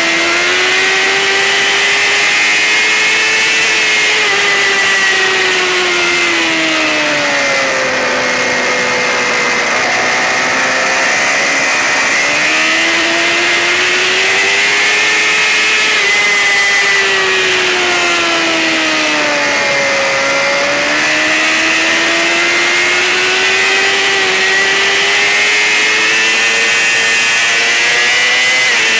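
Racing sportbike engine running at high revs, its pitch rising and falling in slow, smooth sweeps about every eleven seconds, over a steady rushing hiss.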